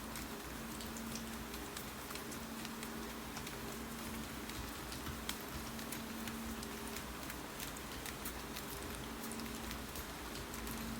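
Steady rain falling, with scattered irregular sharp clicks of typing on a keyboard over it, and a low hum that fades in and out.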